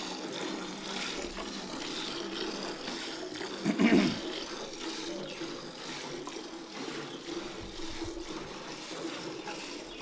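Hand milking of a Nili Ravi buffalo: rapid squirts of milk from the teats into a steel bucket already holding milk, a steady liquid hissing patter. A short, louder sound breaks in about four seconds in.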